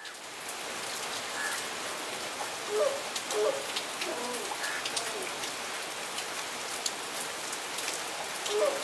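Grey crowned crane giving short, low honking calls, a cluster of them around three to four and a half seconds in and another near the end. They sound over a steady background hiss.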